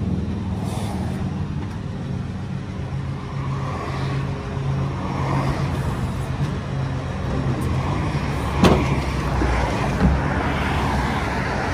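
Tow truck engine idling with highway traffic passing, the traffic noise swelling and fading twice. Two sharp knocks come near the end.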